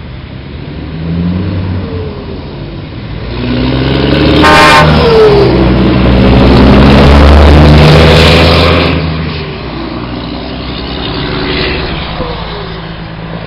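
A truck sounds its horn in one short blast, then its diesel engine passes close by, the rumble swelling to a peak and fading away. A second truck passes more faintly near the end.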